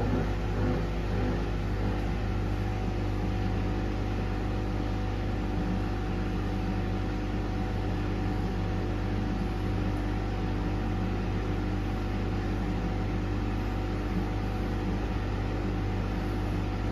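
Pasvens Cottons 40 washing machine running through its wash cycle: a steady, even machine hum with no change.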